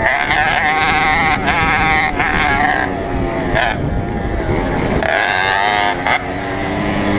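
Small two-stroke moped engine racing under load, its buzzing pitch rising and falling repeatedly as the throttle opens and closes, over a rough rushing noise.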